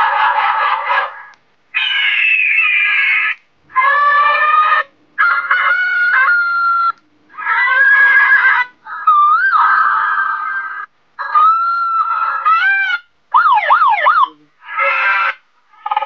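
Handheld megaphone's loudspeaker playing its built-in electronic sound effects one after another as the music/siren button is held: about nine different short sounds, each a second or so long with brief gaps between. One near the end is a fast up-and-down siren wail.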